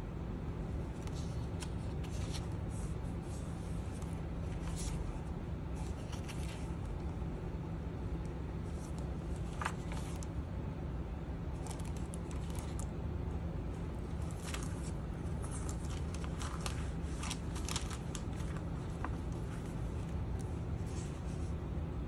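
Pages of a handmade junk journal being turned and handled: a scatter of short, papery rustles and swishes as the mixed paper pages slide against each other. A steady low hum runs underneath.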